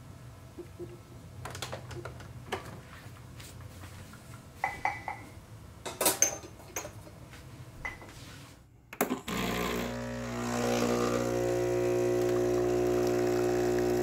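Clicks and clinks of a portafilter and glass shot cups being handled on a stainless espresso machine. Then, about nine seconds in, the Breville espresso machine's pump starts a steady hum that grows louder a second later as it brews a double shot of espresso.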